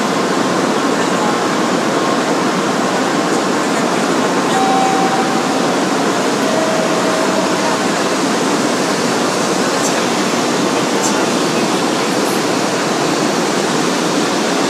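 Shinkansen bullet train pulling out of a station platform: a steady, even rushing noise of the train moving off, with a few faint brief tones mixed in.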